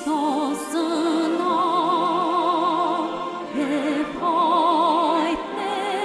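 A woman singing an Armenian Christmas song in long, held phrases with a wide vibrato, over soft instrumental backing.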